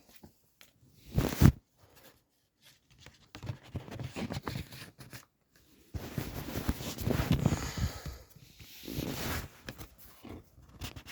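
Rustling and handling of a CD booklet and plastic jewel case, in irregular bursts, with one short loud knock about a second and a half in and a longer spell of rustling in the second half.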